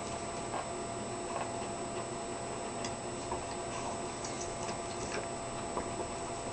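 Leonberger licking a bare foot: irregular tongue clicks and smacks, a few a second, over a steady background hiss.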